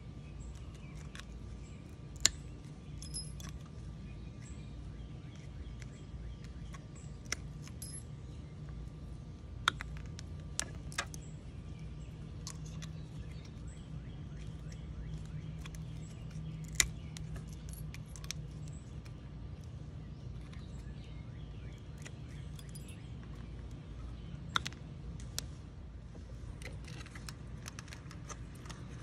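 Scattered sharp snips and clicks, about eight over the stretch, as hand cutters clip the plug heads and brass prongs off the power cords. A steady low hum of the surroundings runs underneath.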